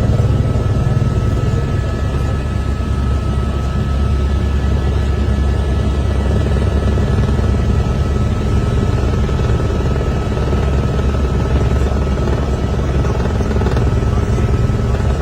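Helicopter rotor and turbine running steadily in flight: a rapid low chop with a faint steady high whine over it.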